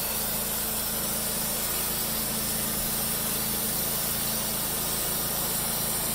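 Wood-Mizer LT15 portable sawmill running steadily: an even engine hum under a constant hiss.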